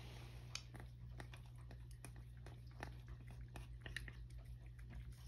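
A domestic cat eating soft wet food from a shallow dish: quiet, irregular chewing and small wet clicks of its mouth, several a second.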